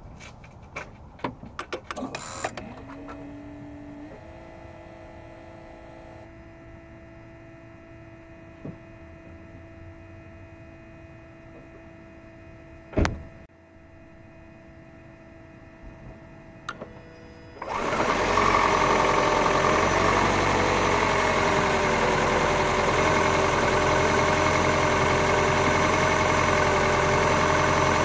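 Gen 2 Toyota Prius powering up: a run of clicks, then a faint steady electric whine with one sharp click about halfway through. About two-thirds of the way in, the 1.5-litre four-cylinder engine starts and runs steadily, much louder; this is an engine that still rocks on its mounts after a torque mount replacement.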